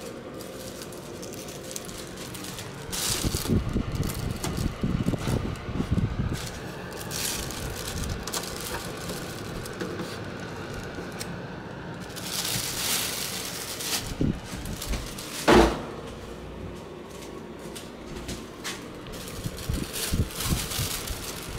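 Thin plastic shopping bag rustling and crinkling as it is handled and set over an air purifier's outlet, with the purifier's fan running steadily underneath. A single louder, sharp sound comes about fifteen seconds in.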